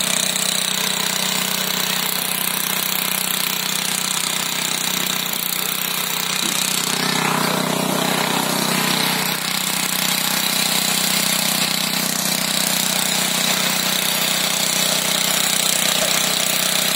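Westwood ride-on mower's small petrol engine running steadily with a rattly note.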